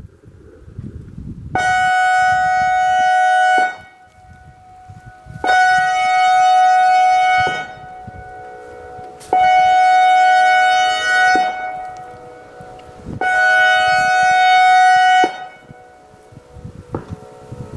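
ACA Alertronic AR-1600 electronic outdoor warning siren sounding a pulsed signal: four loud, horn-like blasts of one steady pitch, each about two seconds long with about two-second gaps between them.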